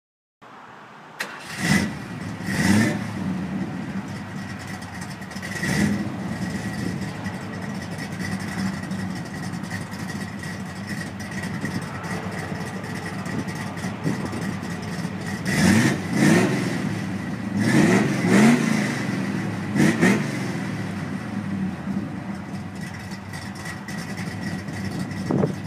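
Car engine starting about a second in, then idling, blipped repeatedly: two quick revs just after it catches, another a few seconds later, and a run of four or five revs past the middle.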